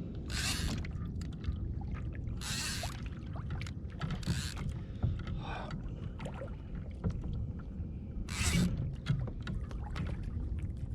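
Water splashing and sloshing at a kayak's side in a few short bursts, over a steady low rumble of wind and water on the microphone.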